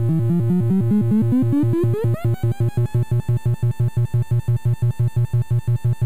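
Weird Sound Generator, a six-oscillator analog synth noisemaker, making a chopped, stuttering electronic tone. A pitch sweeps upward over the first two seconds, then the sound settles into an even stutter of about seven pulses a second.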